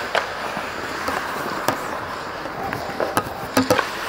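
Ice hockey play around the net: skates scraping and carving the ice, with sharp clacks of sticks and puck. The clacks come singly at first, then several in quick succession near the end.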